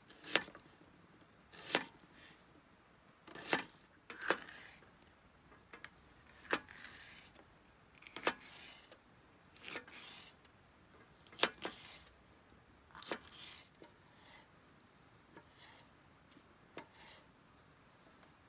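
A series of sharp knocks or taps, roughly one every second and a half, several of them followed by a brief scrape or rub; they grow fainter toward the end.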